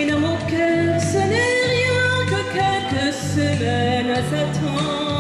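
A woman singing a song live into a microphone over instrumental accompaniment, amplified through loudspeakers; her held notes waver with vibrato.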